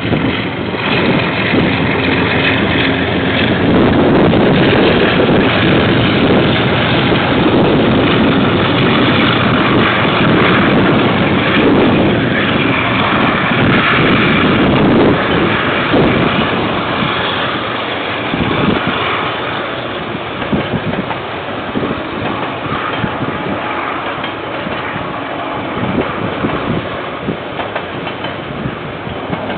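A KiwiRail diesel freight train passing close by. The locomotive and the first wagons are loudest for the first half. From about halfway the sound eases to the rolling of box and container wagons, with their wheels clacking over the rail joints.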